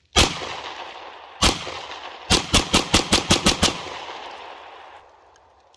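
B&T GHM9 9mm carbine firing: a single shot, another about a second later, then a quick string of about eight shots, with echo rolling off after the last.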